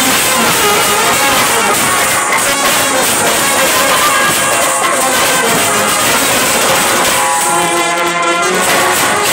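Indian street brass band playing at full volume: saxophone, trumpets and trombones over drums. Near the end a single held horn note stands out for about a second and a half.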